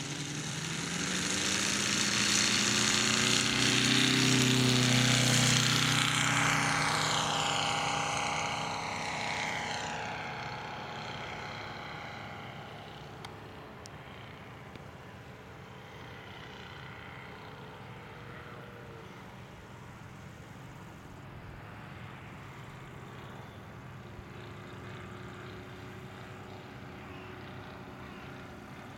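Seidel Stern 250B-7 seven-cylinder radial petrol engine of a 1:3 scale model Wilga at full throttle through the take-off. It is loudest a few seconds in. It then falls in pitch and fades to a steady, distant drone as the aircraft climbs away.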